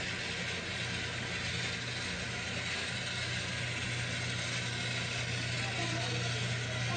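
A small geared mechanism whirring steadily over a constant low hum.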